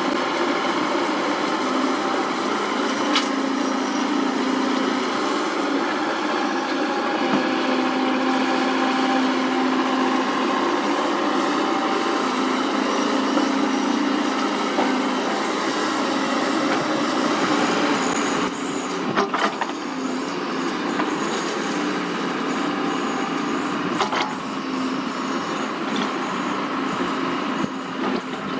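Sany SY75C excavator's diesel engine running under hydraulic load with a steady drone, with a few sharp knocks and clanks. About two-thirds of the way through the engine sound drops to a lower level.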